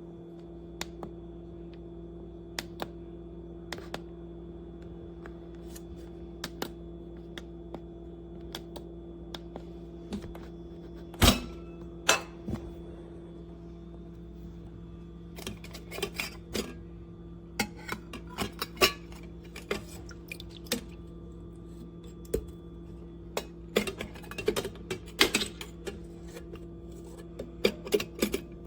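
Scattered light clicks, knocks and clinks of objects being handled, like kitchenware being set down, over a steady low hum. The clicks come more often in the second half, and one louder knock falls about 11 seconds in.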